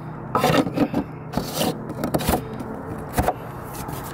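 Plastic deck-hatch lid of a kayak's dry storage being set on its ring and twisted shut: several short plastic scrapes and rubs.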